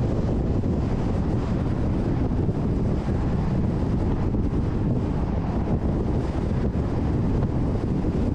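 Steady low rumble of a car driving, road noise mixed with wind on the microphone.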